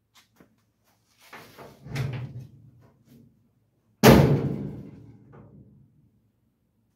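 Steel door of a 1951 Chevrolet pickup cab, freshly hung and adjusted on its hinges, handled and shut to check its fit. There is a lighter clack about two seconds in, then the door is slammed about four seconds in: a sharp bang, the loudest sound, ringing off over about a second and a half.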